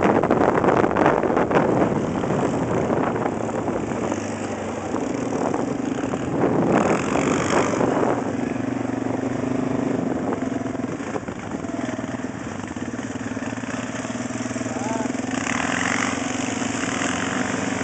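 ATV engine running at a steady drone while riding, with wind rushing over the microphone in the first couple of seconds that eases as the ride slows.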